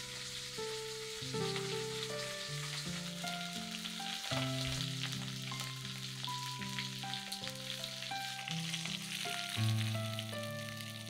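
Fish frying in oil in a black iron wok, a steady hissing sizzle, under background instrumental music playing held notes that change every second or so.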